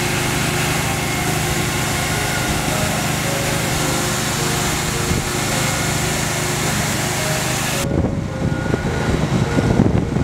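Motor-driven disinfectant sprayer running steadily, a loud hiss over a motor hum, as it mists the inside of an aircraft's hold. It cuts off suddenly about eight seconds in, leaving wind buffeting the microphone.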